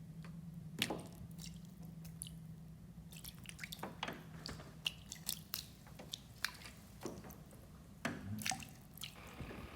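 Irregular small wet drips and clicks over a faint steady low hum that fades out about halfway through.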